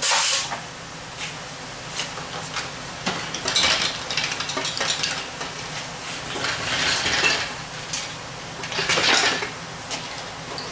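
Metal hand tools and steel transmission parts clinking and clattering against the aluminum case of a TH400 automatic transmission during teardown, in several separate bursts: one at the start, then around a third of the way in, two-thirds in, and near the end.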